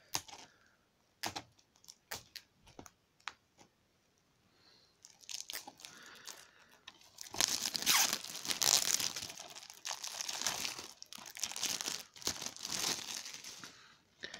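A few sharp clicks as a knife cuts into the cellophane shrink-wrap of a DVD case, then the plastic wrap being torn and peeled off the case with crinkling that grows loudest in the second half.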